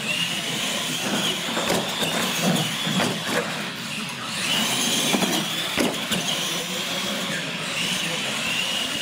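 Radio-controlled monster trucks driving on a concrete floor: a high motor-and-gear whine that rises and falls with speed, with a few knocks of the trucks' tyres and chassis bumping.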